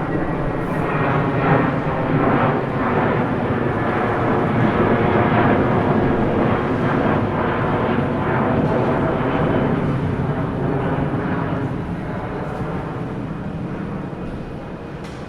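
Airplane engines running at high power, a loud steady noise with several held tones, fading gradually over the last few seconds.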